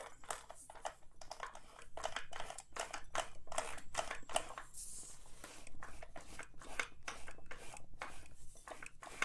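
A cloth rag rubbing and wiping over the metal rods, shafts and gears under a Singer 401A sewing machine, scrubbing off old oil and black gunk: a run of quick, irregular rubbing strokes, a few each second.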